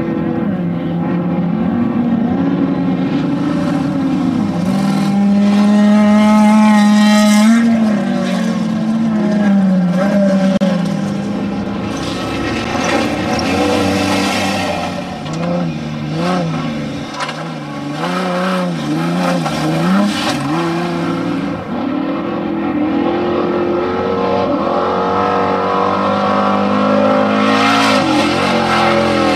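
Off-road desert race vehicles' engines running hard, the pitch rising and falling again and again as they rev up and ease off, with a run of quick up-and-down revs near the middle.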